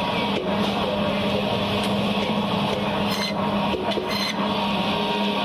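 Electric fish-cutting band saw running with a steady hum as pangas fish is pushed through the blade, with two short, harsher rasps about three and four seconds in as the blade cuts through the fish.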